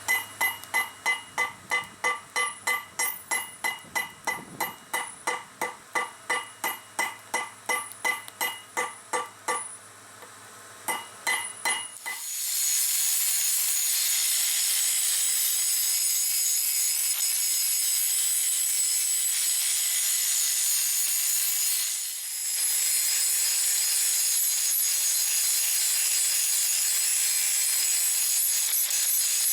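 Hammer striking a steel file on an anvil, about two to three ringing blows a second, as the file is forged into a gouge. After a short pause and a few more blows, a grinder grinds the steel with a steady high hiss, dipping briefly about two thirds of the way through.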